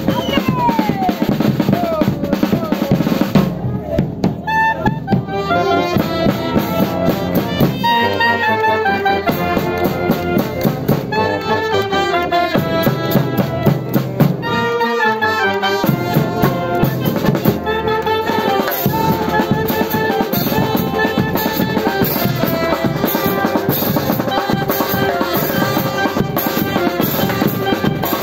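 A marching wind band of clarinets, trumpets and saxophone playing a lively tune over a steady drum beat, with short breaks in the playing about four seconds in and again about halfway through.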